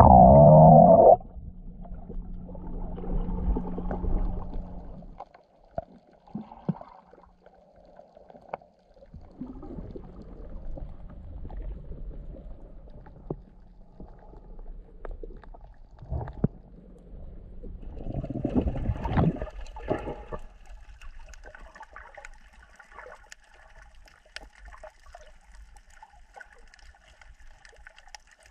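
Water sound picked up by a snorkeler's camera: muffled gurgling and sloshing, with a loud rush in the first second and a steady low hum for the first few seconds. From about two-thirds of the way in, faint high crackling.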